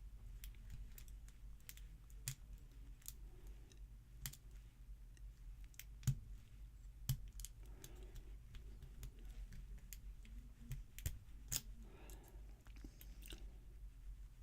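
Lock pick and tension wrench working the pins of a Master Lock Pro Series 6121 padlock: faint, irregular clicks and light scrapes, with a few sharper clicks, over a steady low hum.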